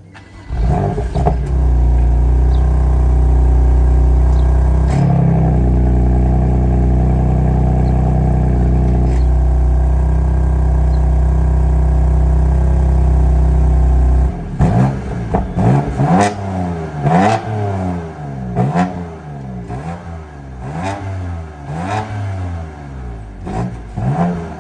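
Stock 2020 BMW M2 Competition's S55 twin-turbo inline-six on its factory downpipes and valved exhaust. It starts about half a second in and settles to a steady high idle, its tone shifting a couple of times, then is blipped in quick revs about once a second for the last ten seconds. It has the quiet, restricted stock sound.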